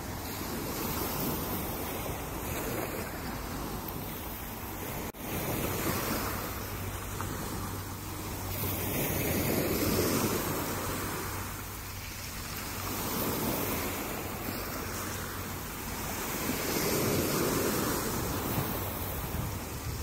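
Small waves breaking and washing up a pebble shore, the surf swelling and easing every few seconds, with some wind buffeting the microphone.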